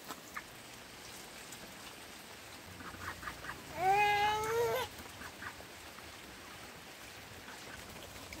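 Farm poultry giving one drawn-out call about halfway through, lasting about a second and rising slightly in pitch, with a few faint clicks around it.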